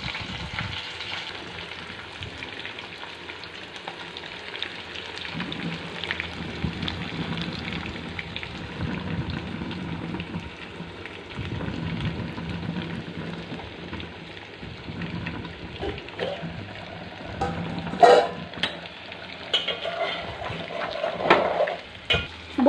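Pieces of pomfret shallow-frying in hot oil in a wok, a steady crackling sizzle. Near the end come a few louder scrapes and knocks as a metal slotted spatula works the fish in the pan.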